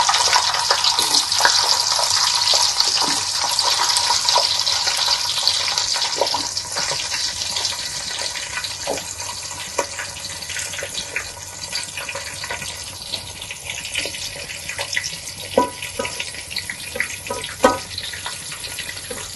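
Chopped onions sizzling in hot oil and ghee with whole spices in a pot: a loud, hissing sizzle that gradually dies down as the onions cool the oil. Scattered light taps come as more onion pieces are dropped in by hand.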